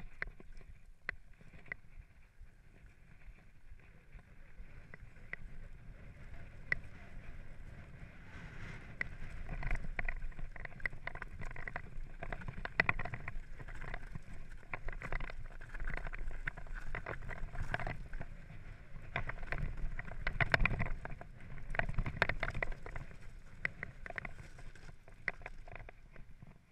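Mountain bike rattling and knocking over a rocky trail: tyres rolling on loose stones, with many short clicks and knocks from the bike over a steady low rumble. The jolting gets louder and busier about a third of the way in.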